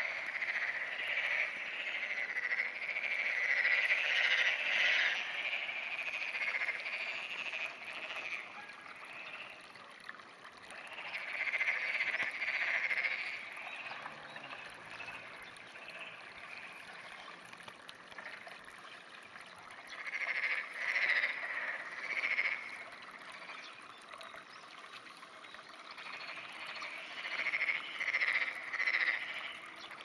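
Frogs croaking in a chorus, in bouts of a few seconds that come about four times, with quieter stretches between.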